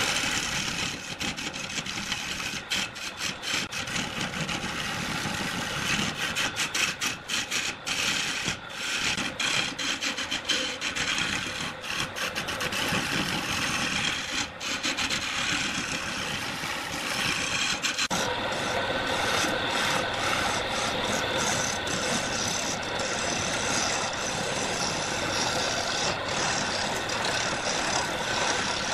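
Wood lathe spinning a large wooden blank while a hand-held turning tool cuts into it, a continuous rough shearing noise as shavings tear off. About two-thirds of the way through the sound becomes steadier and more even.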